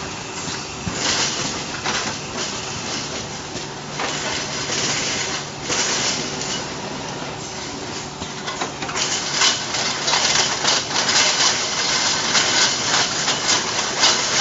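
LED tube light assembly machine running: a steady machine hum under repeated short hisses and clicking, clattering metal parts. The clatter grows dense and louder in the second half.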